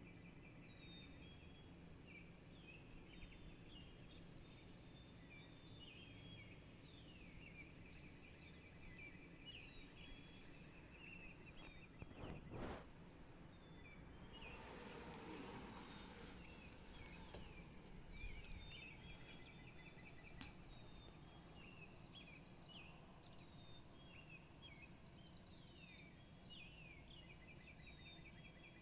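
Faint dawn chorus of small birds: many short, repeated falling chirps and quick trills overlapping. A brief louder noise cuts in about twelve seconds in, followed by a rougher, noisier patch for a couple of seconds.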